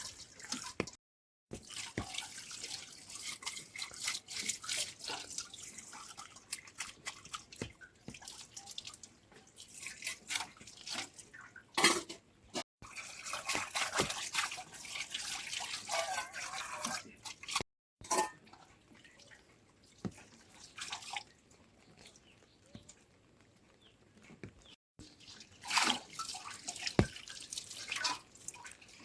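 Water dripping and splashing with scattered clicks and knocks, broken several times by abrupt cuts to silence.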